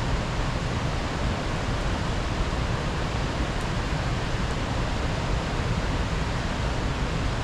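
Steady rushing outdoor noise with a heavy low rumble, even throughout and with no distinct events.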